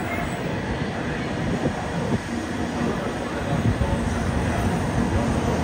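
Tokaido Shinkansen high-speed train running on the line: a steady, dense rumble and rush, a little louder in the second half.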